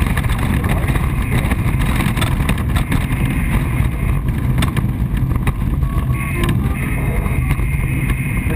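Steady, loud rumble and wind noise as the Single Astir glider rolls across a grass airfield, heard from a camera mounted on the glider.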